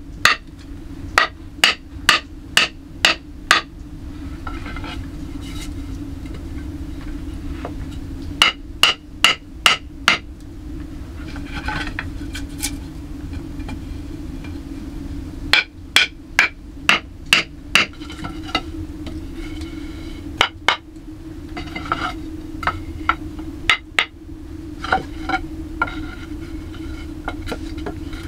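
Hammering: runs of six or seven sharp blows at about three a second, with pauses of a few seconds between runs and some fainter knocks in the pauses. A steady low hum sits underneath.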